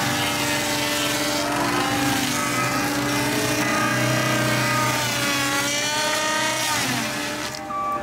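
Tracked skid steer's diesel engine and hydraulic rotating tree saw running hard while the disc blade cuts through a stump; the pitch sags and recovers as the blade loads up. The sound changes abruptly near the end.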